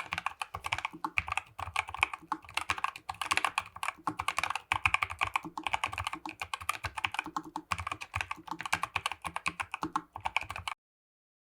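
Typing on a NuPhy Air96 V2 low-profile mechanical keyboard with Moss switches: a quick, uneven run of keystroke clacks. It stops abruptly near the end.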